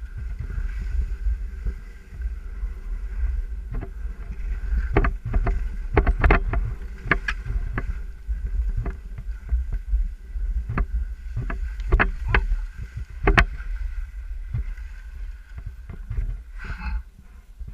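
Skis running over snow with wind rumbling on the microphone and a run of sharp clicks and knocks, thickest and loudest in the middle, thinning out near the end.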